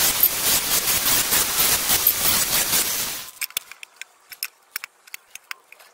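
A loud, steady hiss that cuts off about three seconds in, followed by a scatter of light clicks and taps as a metal plate is handled and laid over the cut-open sump.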